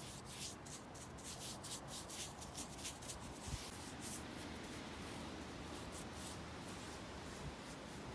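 Bristle brush swishing back and forth over a wooden board, spreading a wet finish: quick strokes, about three a second, that grow fainter and sparser after about four seconds.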